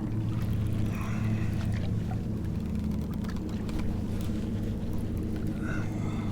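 A boat motor running steadily with a low, even hum. Faint brief higher-pitched sounds come about a second in and again near the end.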